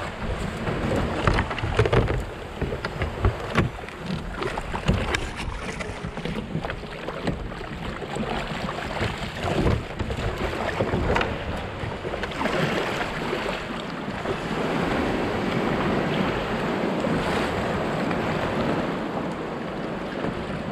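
Water splashing and sloshing around a kayak, with irregular splashes and knocks in the first half giving way to a steadier rushing wash, and wind on the microphone.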